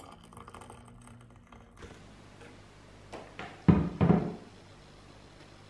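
Hot water poured from a Kenwood electric kettle into a mug over a tea bag, stopping after about two seconds. Then come two loud knocks as the kettle is set back down on the counter.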